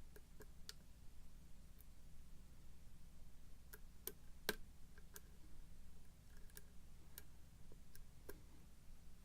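Faint, irregular clicks of a steel hook pick working through the warding of a pin-tumbler lock and lifting pins to set them, the loudest click about four and a half seconds in.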